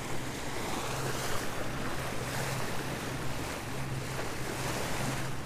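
Jeanneau Sun Odyssey 440 sailboat motoring slowly on its diesel engine: a steady low engine hum under the rush of water along the hull and wind buffeting the microphone.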